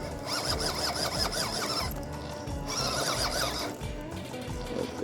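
A small RC crawler's 370 brushed motor and gearbox whining in two bursts of throttle, the pitch rising and falling quickly as it struggles to climb a rock, over background music.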